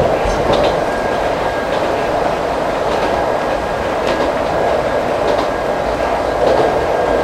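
Ichibata Electric Railway 2100 series electric train running at speed, heard from inside the car: a steady rumble of wheels on the track with occasional faint clicks over rail joints.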